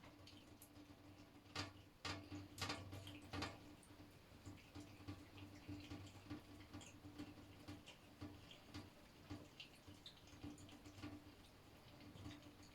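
Water dripping in a shower: irregular small drips, with a few louder ones in quick succession from about one and a half to three and a half seconds in, over a faint steady hum.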